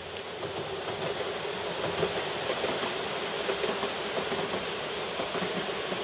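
A passenger train running along the far bank of the river: a steady rushing rumble with light clicks from the wheels, slightly louder after the first second, over the rush of the river.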